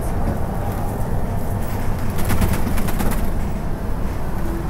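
Inside a moving LiAZ 6213.22 articulated city bus: a steady low drone of engine and road noise, with a short run of rattling clicks about halfway through.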